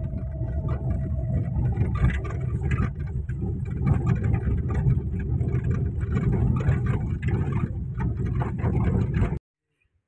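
Car driving over a bumpy dirt field track, heard from inside the cabin: a steady low rumble of engine and tyres with frequent small knocks and rattles from the bumps. It cuts off abruptly near the end.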